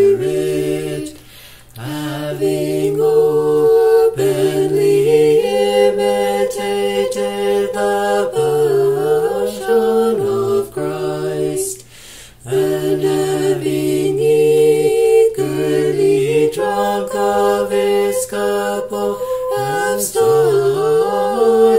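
A cappella choir singing Orthodox liturgical chant in long held notes. There are short breaks for breath about a second and a half in and again near the middle.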